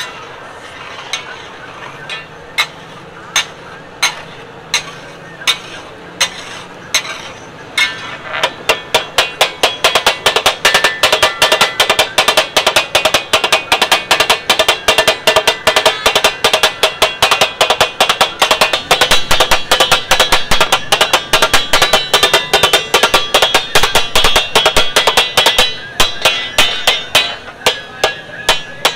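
Metal spatulas clanking on a large tawa griddle as spleen is chopped and fried in masala. Separate strikes come slowly at first. From about eight seconds in they become a fast, steady rhythmic clatter, which slows again near the end.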